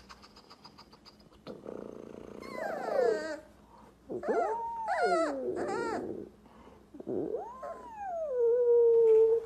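Young puppies howling and whining: a string of drawn-out, wavering cries that slide up and down in pitch. The last and loudest rises, falls, then holds a steady note.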